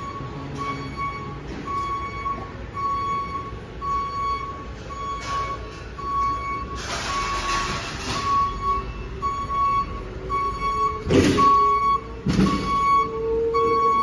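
Electronic warning beeper repeating steadily about once a second, the motion alarm of a store lift truck. There is clattering about halfway through and two loud knocks near the end.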